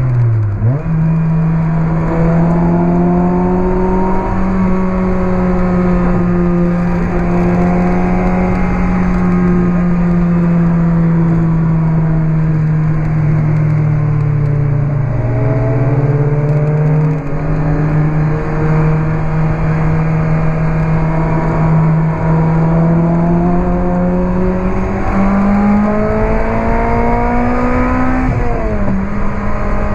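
A Lotus Elise 111R's Toyota 2ZZ-GE 1.8-litre four-cylinder engine, breathing through a Larini exhaust, driven hard from onboard. The revs climb and fall slowly, with a sharp dip about a second in and another near the end, over a steady rush of wind and road noise.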